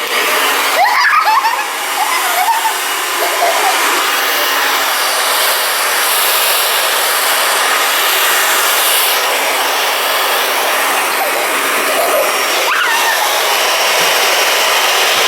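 Hand-held hair dryer running steadily, a constant rushing blow of air. Short bits of a child's voice rise over it about a second in and again near the end.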